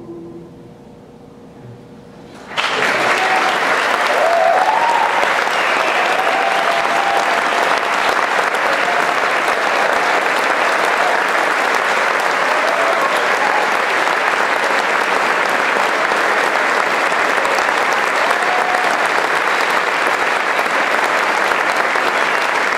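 An a cappella quartet's final held chord ends right at the start. After a short lull, an audience breaks into loud applause about two and a half seconds in, which keeps going steadily.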